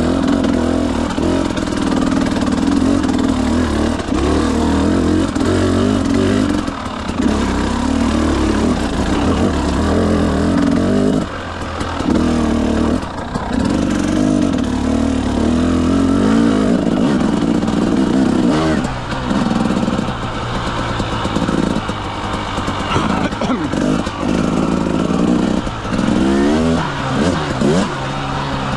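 Motorcycle engine under way, its note falling away and climbing again several times as the throttle is rolled on and off, over a steady rushing noise.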